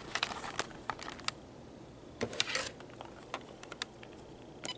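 Scattered light clicks and taps from a cordless phone handset being handled, in irregular single clicks with a small cluster partway through.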